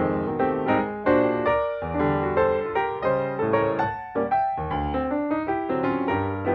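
Background music: piano notes played at a moderate pace, each struck and decaying.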